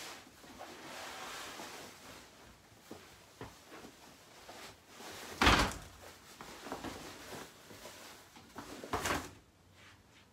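Sheet-covered crib mattress being set down into a crib: rustling and handling noise, then a loud thump about five and a half seconds in, and a second, softer thump near nine seconds, with light knocks against the crib frame.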